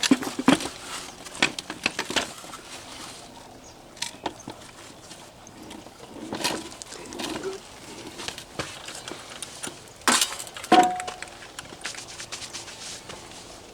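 Scattered knocks and clatter of rock and dirt being dumped out of a small work-train car. About ten seconds in come two sharper strikes, and the second is a metal clank that rings briefly.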